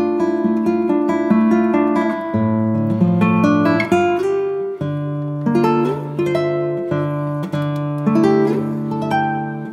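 Background music: an acoustic guitar playing chords, the notes plucked and ringing with regular chord changes.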